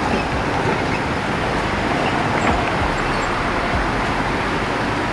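Steady street traffic noise, vehicles running along a road.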